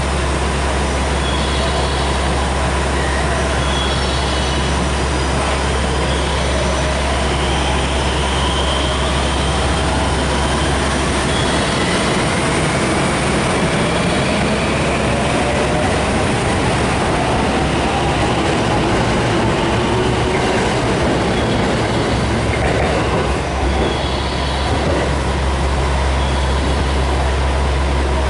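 521-series electric train pulling out of the station. Its inverter-driven traction motors whine in tones that climb steadily in pitch as it accelerates, followed by wheel-on-rail noise as the cars pass.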